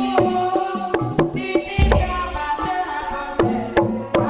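Javanese gamelan accompanying a lengger dance: struck, tuned percussion notes ringing over deep kendang drum strokes.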